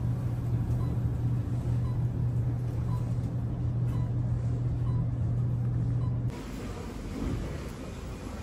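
Steady low hum of a moving elevator car, with a faint tick a little more than once a second. It cuts off about six seconds in, leaving quieter room ambience.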